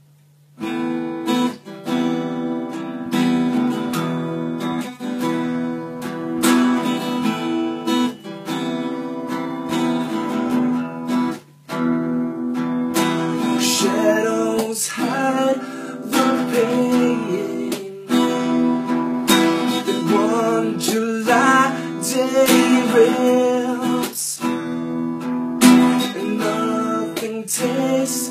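Acoustic guitar strummed in a steady chord pattern, starting about half a second in, with a brief break about eleven seconds in.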